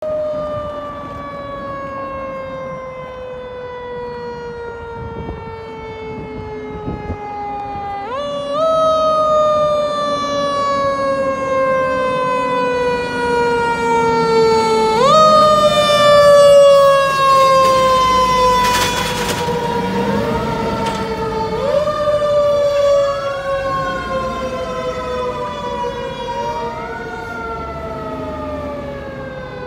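Fire apparatus siren on a passing engine and ladder truck: a mechanical-style siren that jumps up quickly in pitch and then slowly winds down, again and again. Later it runs in shorter rise-and-fall cycles with overlapping sweeps. A short burst of hiss comes about two-thirds of the way in.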